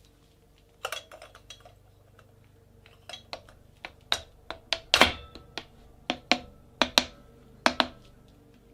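Metal engine parts and hand tools knocking and clinking during Fiat 126p engine assembly: a dozen or so sharp separate knocks, the loudest about halfway through with a short metallic ring.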